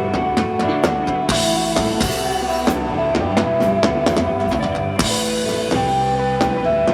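Live instrumental desert rock band playing: a drum kit with frequent snare and bass drum hits and two cymbal crashes, about a second in and near five seconds, over held electric guitar and bass notes.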